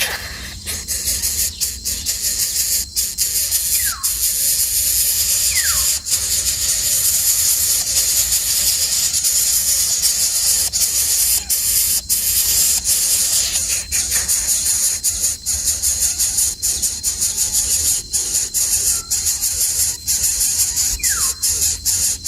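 A steady, high-pitched drone of insects fills the whole stretch. A bird gives short whistles that fall in pitch, one pair about four seconds in and another pair near the end.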